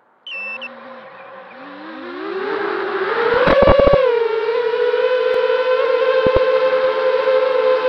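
FPV quadcopter's brushless motors spinning up from idle and lifting off, their pitch gliding upward over about three seconds, with a quick run of clicks around liftoff. They then settle into a steady high whine.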